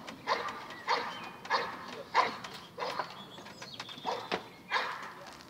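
A dog barking repeatedly at an even pace, about eight short barks, a little under two a second.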